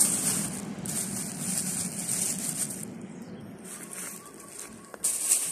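Rustling and crumbling of hands working loose red volcanic soil in a black plastic grow bag. The noise stops and starts several times.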